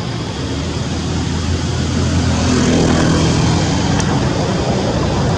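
A motor vehicle's engine and road noise, a steady rumble that swells about two seconds in.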